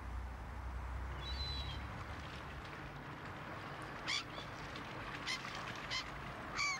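Birds calling: about four short, sharp calls in the second half, over a steady outdoor hiss.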